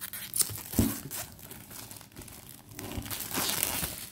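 Cellophane shrink-wrap being torn and crinkled off a boxed tarot deck: irregular rustles and sharp crackles, busiest near the end.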